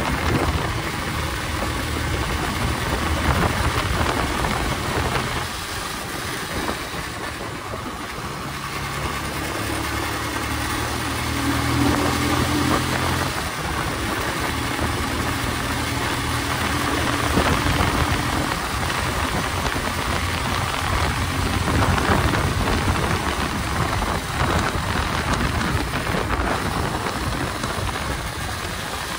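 Motorcycle engine running while riding at a steady pace, with wind noise rushing over the mic. The engine note shifts a little in the middle.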